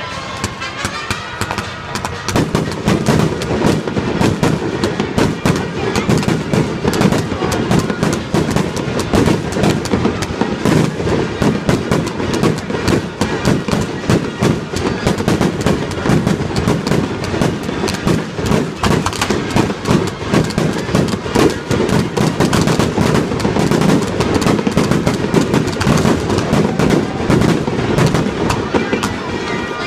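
Fireworks going off in rapid succession: dense, overlapping bangs and crackles that start about two seconds in and keep up without a break.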